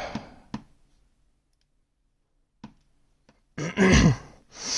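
Two faint small clicks a couple of seconds apart, then a man's short wordless vocal sound falling in pitch and a breathy sigh near the end.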